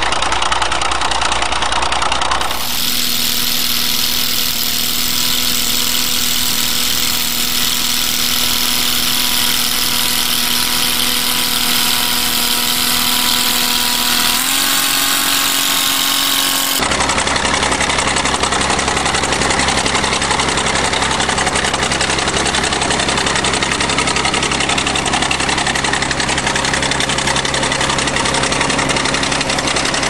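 Engine of an old crawler bulldozer running steadily under load while it pushes snow with its blade. The tone changes abruptly twice, and the engine pitch steps up slightly about halfway through.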